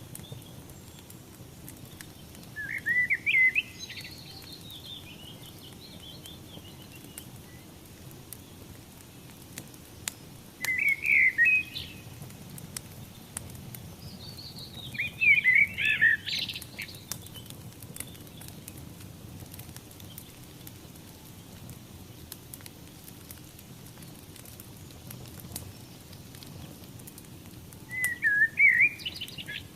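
A songbird sings four short warbling phrases, a few seconds apart, over the steady low hiss and faint crackle of a burning fire.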